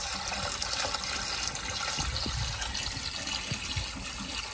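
Water poured steadily from a bucket into an open pool pump's strainer basket, splashing as it fills the pump housing and the suction pipes. This is hand-priming a pool pump that has lost prime.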